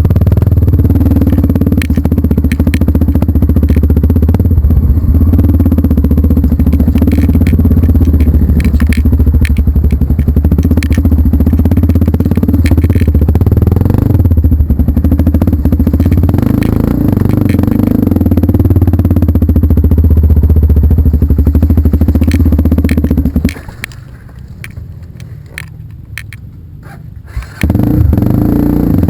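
Vehicle engine running hard and close, a steady low rumble with rattling clicks over it. It drops away for about four seconds near the end, then comes back.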